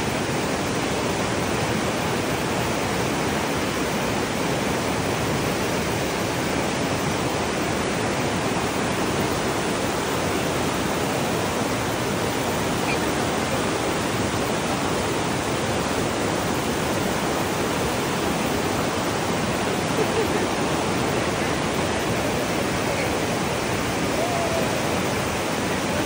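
Stream water rushing steadily over rocks and boulders in the rapids below a waterfall, an unbroken even rush.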